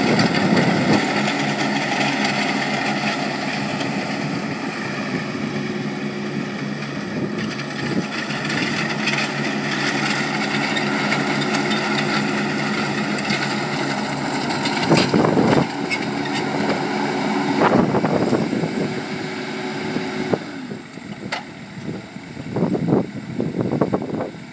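Engine of a Toro out-front riding mower running steadily as it drives across grass, with a few loud knocks about two-thirds through. The engine sound drops noticeably quieter for the last few seconds.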